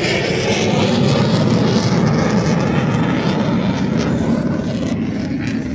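Airplane flying past, a steady rushing engine noise that eases slightly near the end.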